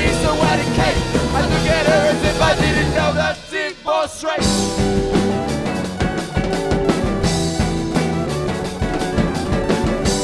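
Rock band playing live, with electric guitar, bass and drum kit. About three and a half seconds in the music briefly drops away, then the full band comes back in with crashing cymbals.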